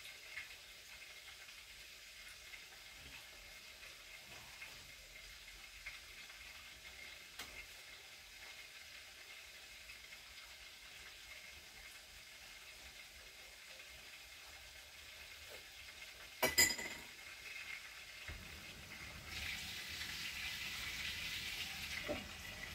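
Cabbage-and-mince cutlets sizzling faintly in a frying pan, a steady high hiss. A sharp clatter comes about three-quarters of the way through, and the hiss grows louder near the end.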